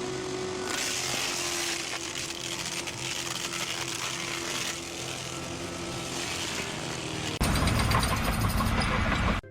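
A motor-driven machine running steadily with a held hum. About seven and a half seconds in it cuts suddenly to a louder, harsher machine noise.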